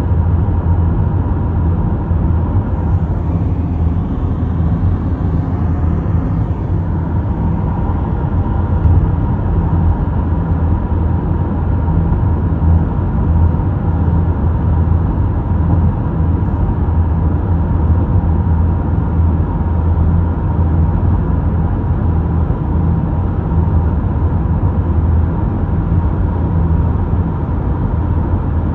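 A car driving at highway speed: a steady low rumble of road, tyre and engine noise with a faint steady hum above it.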